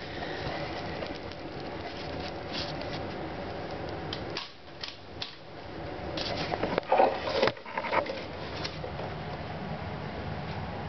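Paper shredder's universal motor running with its brushes arcing and burning, a steady running sound with crackle. It drops away about four seconds in as the supply voltage falls, then gives a run of louder crackles about seven seconds in.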